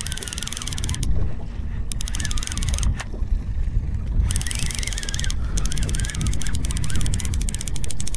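Fishing reel being cranked in bursts: rapid, fast clicking with a wavering whine, pausing briefly a few times as a bent rod brings the line in.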